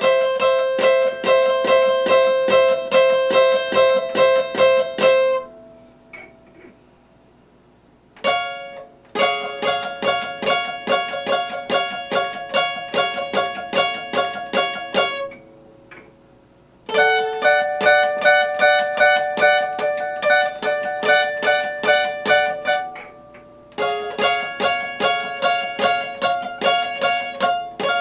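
Epiphone acoustic guitar fingerpicked, a quick run of single picked notes at about four a second. It plays in four phrases with short pauses between them, about five, nine and twenty-three seconds in.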